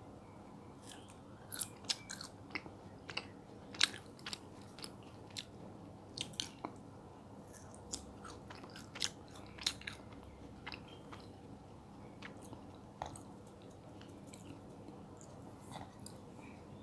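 Close-up mouth sounds of someone chewing soft mango jelly: irregular wet clicks and smacks, the loudest about four seconds in, thinning out in the second half.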